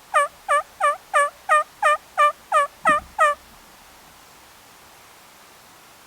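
Turkey calling: a run of about ten evenly spaced, dipping notes, about three a second, lasting a little over three seconds. A brief low thump comes near the last notes.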